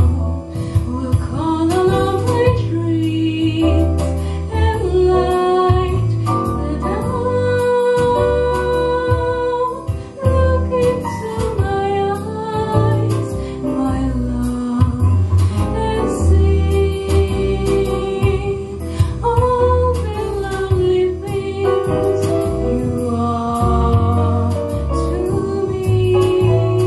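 A young solo singer sings a melody through a microphone and loudspeakers, over a recorded accompaniment with a steady bass.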